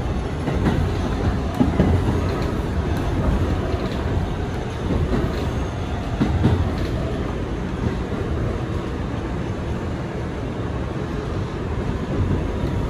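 Kawasaki R211A subway train running along the track: a steady rumble of wheels on rail, with occasional clicks and knocks from the rail joints.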